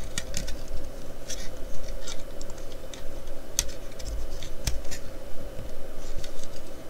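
Small hard plastic model-kit parts clicking and scraping together as the seats are pressed into a model car's interior tub, with scattered sharp ticks.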